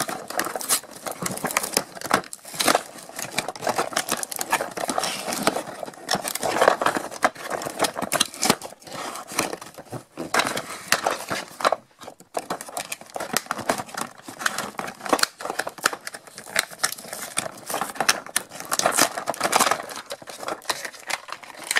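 Toy packaging being handled and pulled apart by hand: a dense, continuous crinkling and rustling with many small clicks and snaps as the toy is worked free of its box and wrapping, with a brief lull about twelve seconds in.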